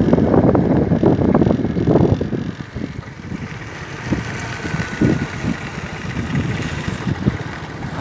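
Wind buffeting the microphone: a heavy low rumble for the first two and a half seconds, then lighter and gusty.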